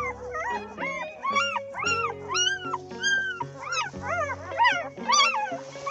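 Newborn Central Asian Shepherd puppies crying: a quick run of short, high squealing whines, each rising and falling in pitch, about two a second. Background music with sustained notes plays underneath.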